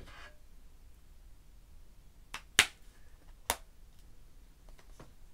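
Handling knocks of iPad Pro tablets being picked up and laid one over the other: two sharp clacks about a second apart, the first the loudest, with a few faint ticks near the end.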